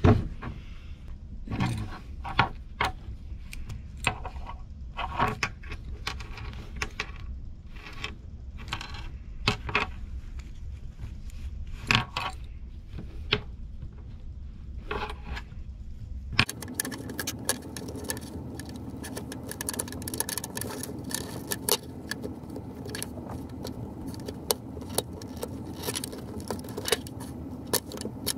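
Metal belt buckle clinking and leather being handled on a workbench: scattered clicks, knocks and scrapes, growing into a denser run of small clicks and scratching about halfway through as the stitching at the buckle end is picked at.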